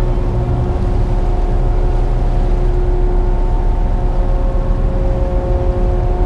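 Voith Water Tractor tugboat's diesel engines running steadily, a deep rumble with several steady humming tones over it.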